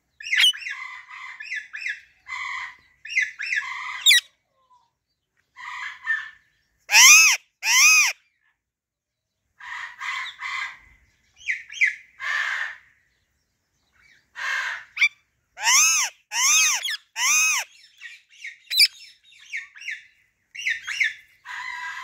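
Female Alexandrine parakeet calling: a stream of short chattering notes, broken by louder, longer arched calls, two in a row about seven seconds in and three in a row around sixteen seconds in.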